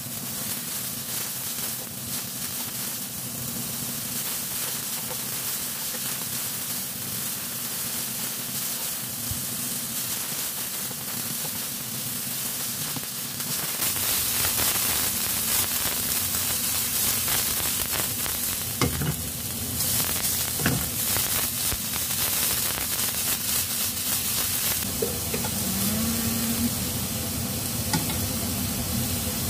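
Shimeji mushrooms sizzling as they fry in a nonstick frying pan, the sizzle growing louder about halfway through as the pan is shaken over the gas flame. A few sharp clinks of metal tongs against the pan come in the second half.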